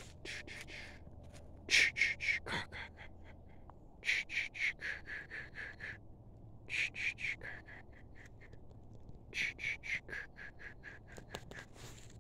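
A bird calling in five runs of rapid, short notes, each run falling slightly in pitch.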